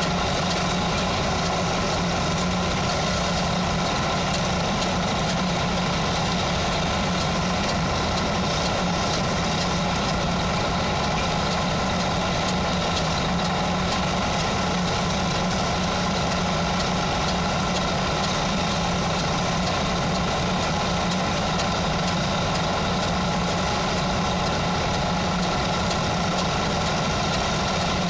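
Continuous stick (arc) welding with a 4 mm electrode: an even, unbroken crackle of the arc over a steady low hum.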